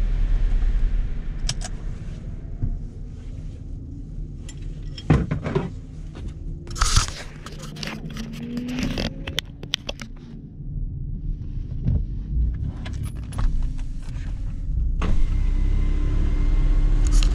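Toyota Yaris stationary with its engine running, a steady low rumble heard inside the cabin. In the middle come sharp clicks, knocks and scrapes of a hand handling the dash-mounted camera close to the microphone.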